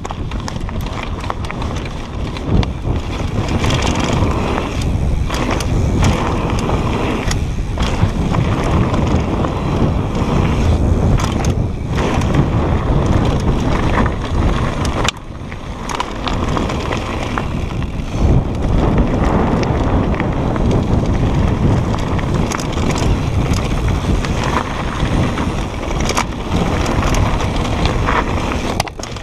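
Propain Tyee mountain bike riding fast down a dirt and gravel trail: the tyres roll over loose ground while the chain and frame rattle and knock over bumps, with wind rushing on the helmet-mounted action camera's microphone. The sound drops briefly about halfway through, then carries on.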